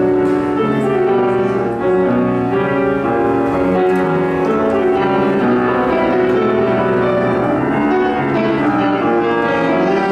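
A grand piano playing a classical piece: a steady, unbroken flow of overlapping notes.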